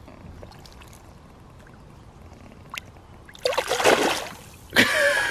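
Largemouth bass splashing in shallow water as it is released, kicking free from the hand. There are two loud splashes, about three and a half seconds in and again near the end, after a quiet start.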